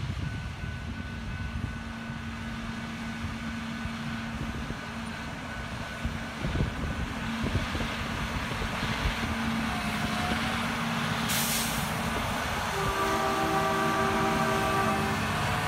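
Self-propelled railway maintenance-of-way machine travelling along the track, its engine running with a steady drone that grows louder as it comes closer. A short hiss of air about eleven seconds in, then a steady pitched tone with overtones lasting about two seconds near the end.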